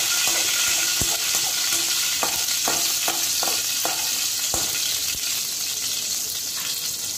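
Cumin seeds sizzling in hot oil in a kadai, frying toward brown for a tempering. A steel slotted spoon stirs them, scraping and tapping the pan several times in the first half.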